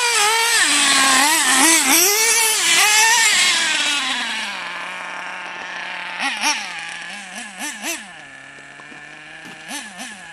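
RC car's motor revving up and down in quick throttle bursts for about four seconds, then settling to a steady lower hum with a few short blips of throttle.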